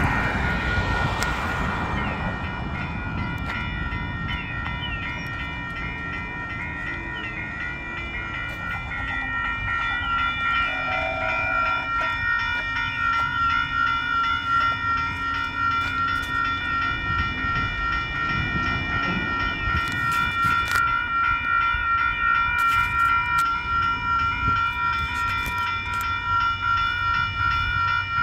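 Railroad grade-crossing warning bell ringing steadily, its repeated strikes giving a rapid even pulse. Under it, a low rumble grows louder over the second half.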